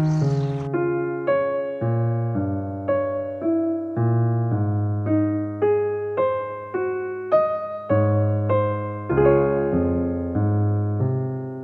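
Background piano music: a slow melody of single struck notes, about two a second, each over a low bass note. A brief noise from the previous clip fades at the very start.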